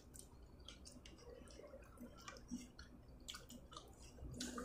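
Faint chewing and scattered soft, wet mouth clicks of people eating seafood boil.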